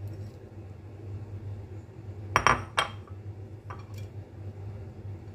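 A few sharp clinks of chopsticks and a ceramic plate against a glass bowl while fried shallots are tipped onto noodles: two loud clinks about halfway through, then two fainter ones, over a low steady hum.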